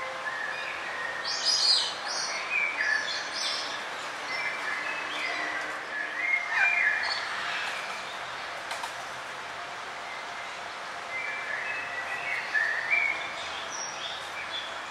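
Several songbirds chirping and trilling in a forest, short calls overlapping over a steady background hiss, busiest in two spells early on and a third near the end.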